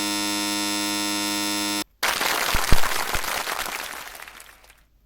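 Electronic buzzer sound effect: a flat, steady buzz for about two seconds that cuts off suddenly. A loud hissing rush follows and fades out over nearly three seconds.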